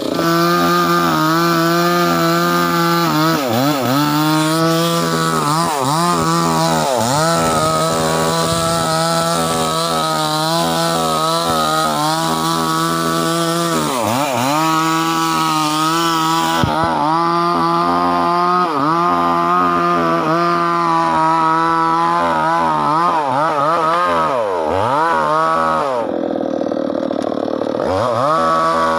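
Petrol chainsaw running at high revs while cutting into a tree trunk. Its engine note dips sharply and climbs back several times as the saw works through the wood.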